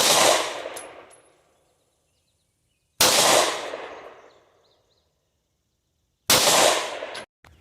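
Three single 9mm shots from a Springfield XD-M pistol, about three seconds apart, each trailing off over about a second.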